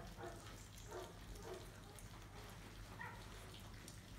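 A litter of five-week-old St Bernard puppies eating kibble from a shared pan: faint short whines and squeaks, with small clicks and crunches of dry food.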